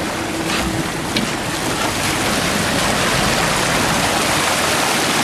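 Steady rush of wind and sea noise on an open boat, growing slowly louder.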